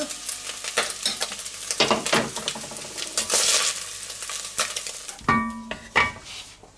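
Browned minced meat sizzling in an enamelled cast-iron Dutch oven while a wooden spatula and spoon scrape and scoop it out, in repeated scraping and clicking strokes. Near the end come a few short ringing knocks of a utensil against metal.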